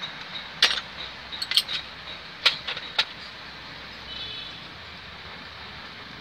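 Small hand tools clicking and tapping against a thin ring and a plastic steering-wheel part: a handful of sharp clicks in the first three seconds, over a low steady background hiss.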